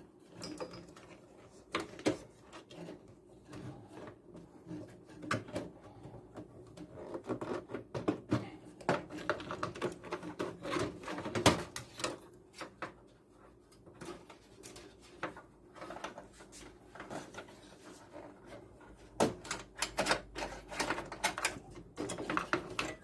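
Irregular clicks, taps and knocks of hands working inside a desktop PC case, handling its parts and cables, busier in two stretches.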